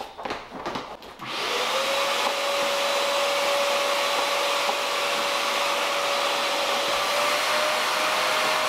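A few knocks, then a wet/dry shop vacuum switches on a little over a second in. Its motor whine rises briefly as it spins up, then holds steady over rushing air.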